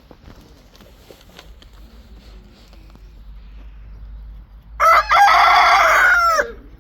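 A rooster crowing once, loudly, about five seconds in; the crow lasts about a second and a half and drops in pitch at its end. Before it, only faint scattered short sounds.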